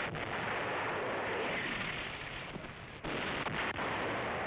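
Naval gunfire and shell explosions: a continuous rumbling roar with a few sharp reports. It dips briefly about three seconds in, then comes back abruptly.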